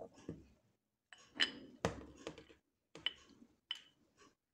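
Steel vise parts and tools clinking against each other as they are handled: five or six sharp clinks, some with a short metallic ring, the loudest about one and a half seconds in.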